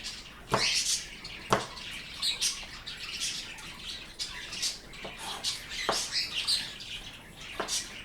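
Pet birds chirping repeatedly in short high calls, with a few sharp knocks in between.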